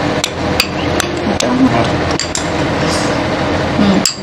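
A metal spoon clinking and tapping against a steel mixing bowl and a cup as gram flour is scooped and knocked into the bowl: a quick, uneven series of sharp clinks.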